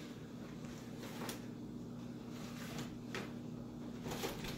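Cardboard beer case scraping and rustling as it is dragged through a dog-door flap, in several short scrapes with a louder clatter near the end.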